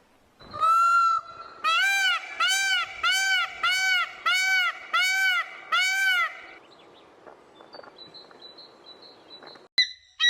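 An animal calling: one rising call, then a steady series of seven arched, pitched calls, about one and a half a second. Faint high chirps follow, and near the end a sharp click and the start of another call.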